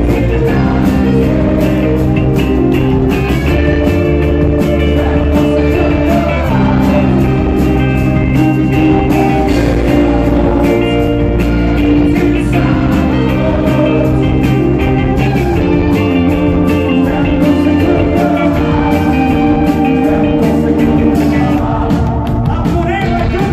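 Live rock band playing loud and without a break: electric guitars and a drum kit.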